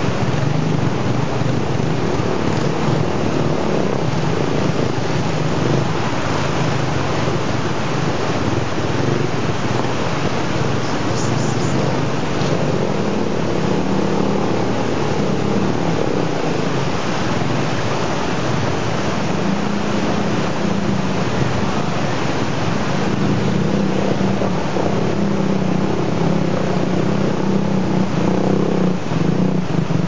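Rushing stream water mixed with small step-through motorcycle engines running and revving as the bikes ford the shallow river, with the engine hum swelling and fading.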